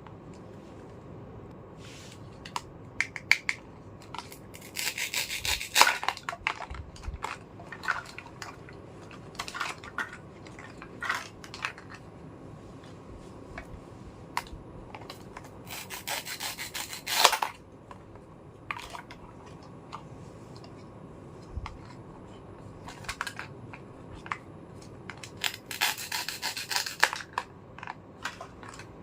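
Small plastic toy kitchen pieces being handled, with scattered light clicks and taps. Three longer rubbing, scraping sounds of a second or so each come about five seconds in, past the middle and near the end.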